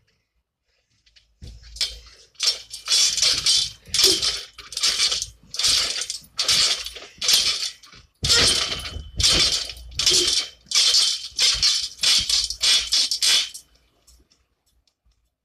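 Trampoline springs jangling and creaking in a rhythmic run, about two metallic clanks a second as someone bounces on the mat. They stop about two seconds before the end.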